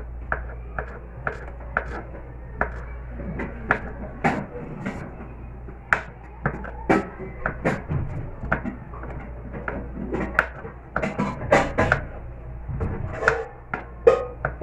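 Kitchen knife slicing hot-dog sausages on a plastic cutting board: irregular taps of the blade striking the board, about one or two a second, coming faster in a quick flurry about eleven seconds in.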